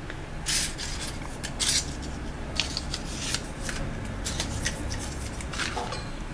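Crepe-paper leaves and dry grapevine twigs rustling and crinkling under the fingers as a small paper leaf is pushed into a grapevine wreath: an irregular string of short crinkles and scrapes.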